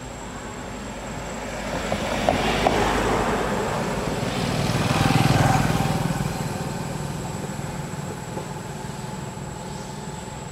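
A motor vehicle passing by, its engine and tyre noise swelling to a peak about five seconds in and fading away, with a couple of sharp ticks shortly before the peak.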